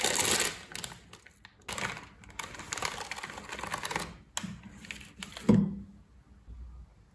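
Crinkly plastic instant-ramen packet rustling and crackling as it is handled and the noodle block and sauce sachets are pulled out, with a louder soft thump about five and a half seconds in as something is set down.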